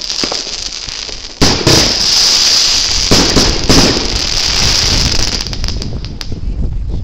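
A pair of Weco Coroner firework batteries, set in a fan, firing. A sharp bang comes about a second and a half in, then a dense run of bursts and crackling that thins out near the end.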